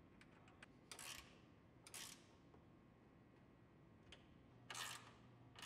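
Ratcheting wrench tightening a bolt: a few faint ticks, then four short bursts of quick ratchet clicks, two near the start and two near the end.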